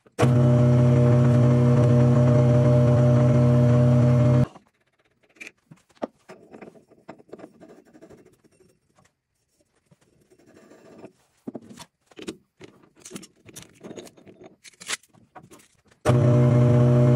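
Metal lathe running with a steady hum that stops suddenly about four seconds in. Then scattered light clicks and scrapes as a diamond cup grinding wheel is screwed by hand onto the steel arbor's thread, before the lathe's hum comes back suddenly near the end.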